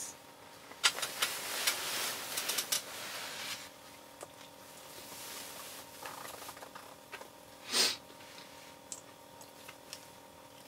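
Small clicks and rustling from hands handling fishing tackle, busiest in the first few seconds, with one short louder rustle near eight seconds in, over a faint steady hum.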